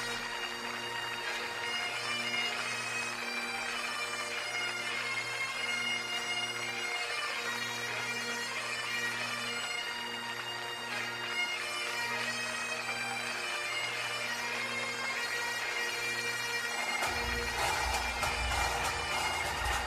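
Bagpipe music: a piped melody over a low repeating note. About seventeen seconds in, heavy drums come in underneath.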